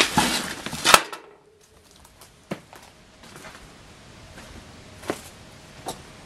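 Footsteps crunching over broken wood and plaster debris: a loud rustling crunch for the first second that ends in a sharp crack, then a few scattered single crunches and knocks.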